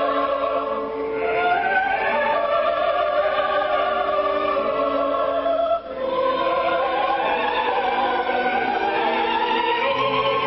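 Coloratura soprano singing an operatic line with chorus and orchestra in a live staged opera performance. About six seconds in the sound briefly drops and a new sung phrase begins.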